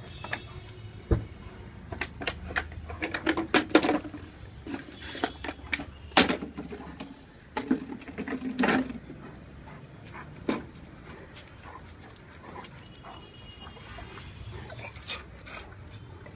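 Great Dane puppy and Boxer playing with a drink bottle: irregular knocks and clatter, mixed with a few short dog vocal sounds. The activity is busiest in the first ten seconds and settles after.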